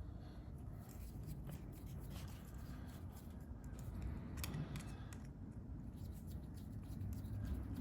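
Faint scattered light clicks and scraping of small parts and hand tools being handled during carburetor reassembly.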